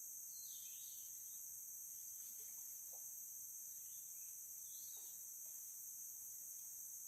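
Steady high-pitched chorus of insects, with a couple of short bird chirps, once near the start and again about five seconds in.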